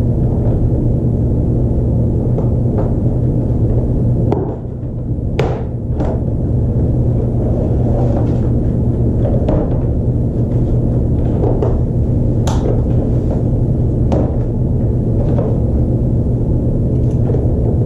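Knocks and clicks of a hard plastic tub being handled while aluminium carabiners are fitted through holes in its rim, over a steady low hum.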